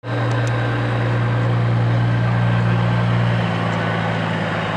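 Diesel engine of a tri-axle dump truck pulling away at low speed: a steady low engine note that eases off slightly about three and a half seconds in.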